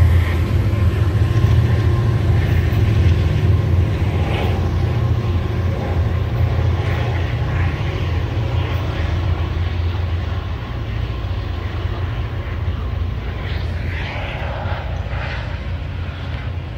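Diesel locomotive engines running with a steady low drone that slowly fades.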